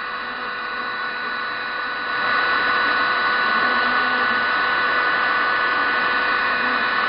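Heat gun blowing steadily, a rush of air with a steady whine from its motor, getting louder about two seconds in and then holding level. It is heating a 3D printer heat break to melt out filament clogged by heat creep.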